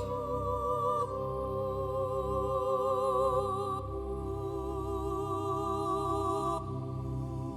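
Slow background music with held, wavering notes, a wordless singing or humming voice over a low sustained bass.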